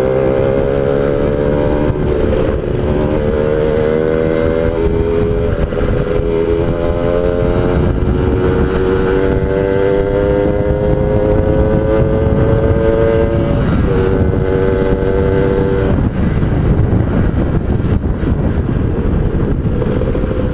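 Suzuki Tornado GS motorcycle engine held at full throttle, its pitch climbing slowly as the bike gains speed, with heavy wind rush. The pitch drops a step a little past halfway, and about three quarters through the engine note fades, leaving mostly wind. The rider suspects fuel starvation at high revs.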